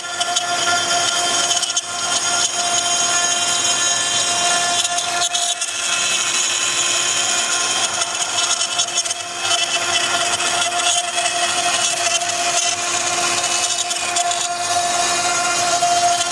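Woodworking CNC router's 3.5 kW air-cooled spindle running with a steady whine while the bit cuts wood, the rough cutting noise swelling and easing over the whine.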